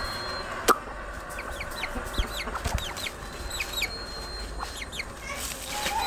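Young chickens calling with a quick string of short, high, falling peeps, with one sharp click under a second in.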